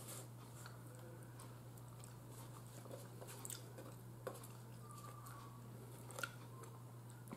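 Quiet chewing of steamed chicken, with a few faint clicks of a metal fork against a plate. A steady low hum runs underneath.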